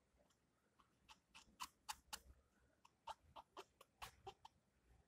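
Makeup sponge dabbing foundation onto the back of a hand: a faint, irregular run of about fifteen short, sharp taps, starting about a second in and stopping shortly before the end.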